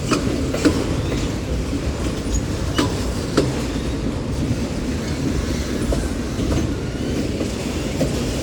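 Cars of a Union Pacific mixed freight train rolling past: a steady rumble of wheels on rails, with occasional sharp clicks and clanks.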